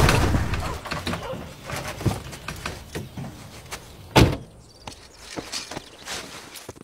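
Jeep door shut with a sharp knock about four seconds in, among lighter knocks and clicks.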